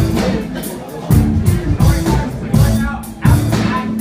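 Live rock band playing loudly, with heavy drum-kit hits and bass recurring in a rhythmic pattern.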